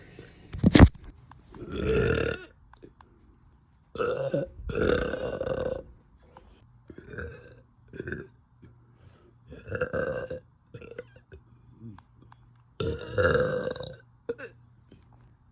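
A young woman burping over and over, deep and loud: about eight burps, some short, the longest lasting a second or two. A sharp click comes about a second in.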